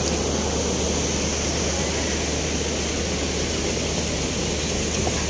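Heavy rain falling in a steady, even hiss, with a steady low hum underneath.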